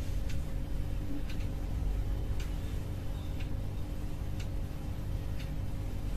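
Clock ticking about once a second, six evenly spaced ticks, over a steady low hum.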